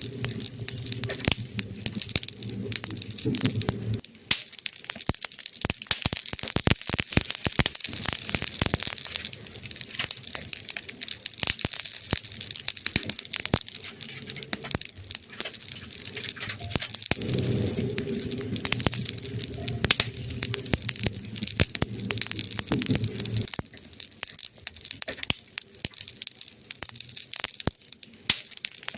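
Wood fire crackling: a steady hiss with many sharp pops and snaps. A low hum sits under it at the start and again for several seconds in the middle.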